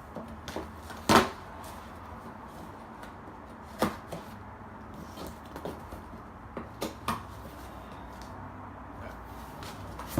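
A gift package being handled and opened by hand: scattered knocks and taps, the loudest about a second in, with more near four seconds and around seven seconds.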